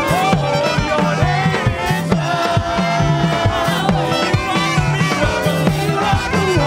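Live church praise band music with a steady drum beat and bass line, with voices singing over it.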